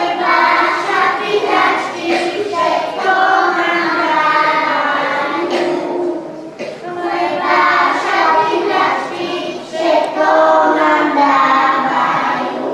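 A group of young children singing together in unison, in several phrases with short breaths between them.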